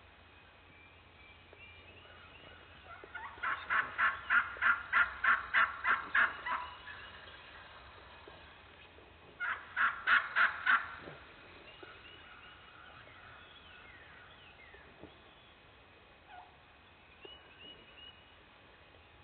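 Turkey yelping: a run of about a dozen loud, evenly spaced yelps, then after a pause of about three seconds a shorter run of five more. Faint small-bird chirps sound underneath.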